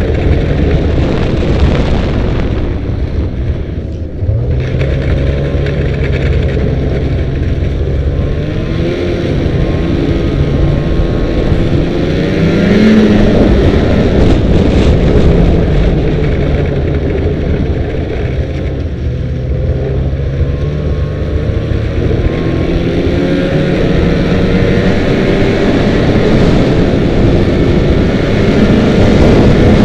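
Snowmobile engine running while riding along a trail, its pitch rising and falling with the throttle; it eases off briefly about four seconds in, then picks up again.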